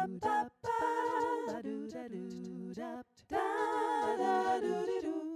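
A cappella singing, voices without instruments holding sustained notes. It comes in phrases with short breaks, about half a second in and again around three seconds, and cuts off abruptly at the end.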